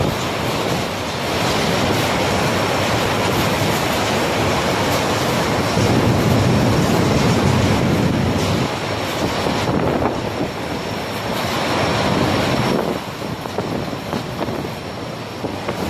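Tropical storm wind blowing hard in gusts, a loud steady rush with low rumbling swells of wind buffeting the microphone, easing a little near the end.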